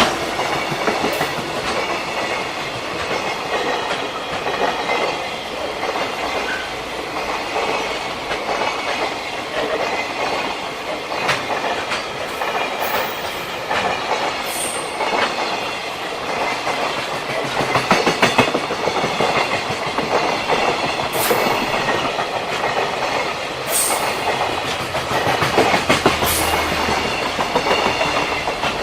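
Freight train wagons rolling past on the Tokaido Main Line, a steady rolling noise of wheels on rail broken by irregular sharp clacks as the wheels cross rail joints.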